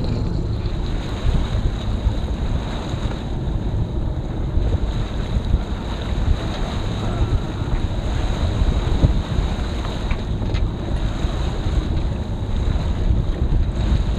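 Wind buffeting the microphone over water rushing and splashing along the hull of a sailing sloop under way, a steady noise heaviest in the low end.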